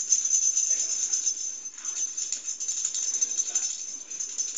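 Light irregular rattling and jingling over a steady hiss.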